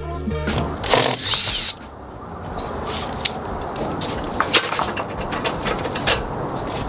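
Stepladder being handled and moved: scattered sharp clicks and knocks over a steady background rush, with a louder noisy stretch about a second in.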